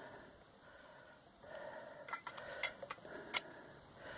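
A few light, sharp clicks and taps, bunched about two to three and a half seconds in, from a stainless steel camping coffee maker and its stove being handled and set in place.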